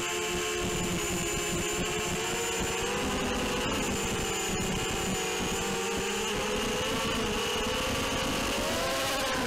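ZMR180 racing quadcopter's brushless motors whining as it flies, picked up by its onboard camera; the layered whine shifts in pitch with the throttle and rises near the end.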